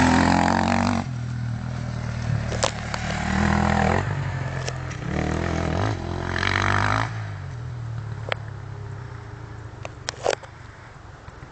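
Off-road dirt bike engine passing close at full throttle, then revving in bursts as it rides away down the track and fading. A few sharp clicks are scattered through it.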